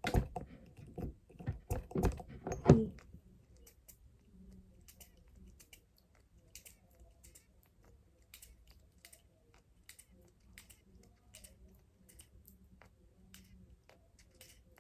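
Clicking and light knocking of a perfume bottle and a small refill atomizer being handled and pumped to fill the atomizer. There are a few louder knocks in the first three seconds, then a long run of faint, quick clicks.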